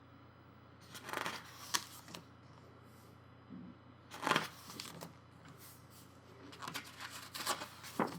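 Pages of a thick glossy photobook being turned by hand: a few short papery swishes and flaps, the last ones close together near the end.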